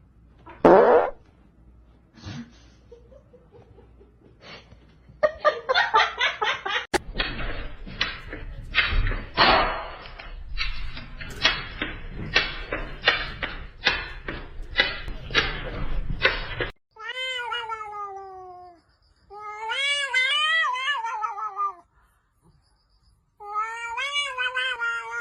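A cat meowing: three long, drawn-out calls in the second half, the first falling in pitch and the second wavering up and down. Before them comes a fast run of short repeated sounds.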